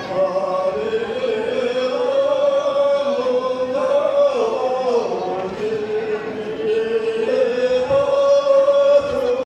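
A group of voices singing a Tibetan folk dance song in unison, with long held notes that slide between pitches.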